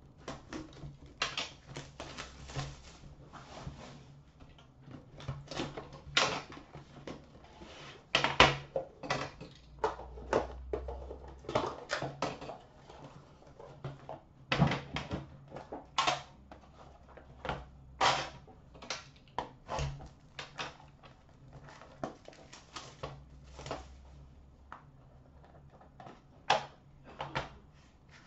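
Plastic shrink wrap crinkling and tearing as it is cut and pulled off an Upper Deck The Cup hockey card tin, mixed with many short sharp clicks and knocks as the tin is handled and opened and its inner box lifted out.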